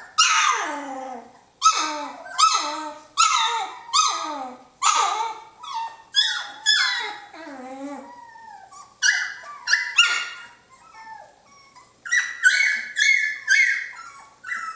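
Three-week-old Jamthund (Swedish Elkhound) puppies crying: a string of short, high whining yelps, each falling in pitch, coming about once a second. There is a brief lull about halfway through, then shorter, higher cries.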